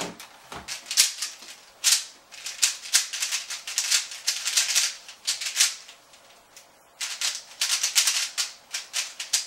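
Plastic MoYu mini Aolong 3x3 speed cube being turned fast in a speedsolve: rapid clicking and clacking of its layers turning, stopping for about a second two-thirds of the way through before the turning resumes.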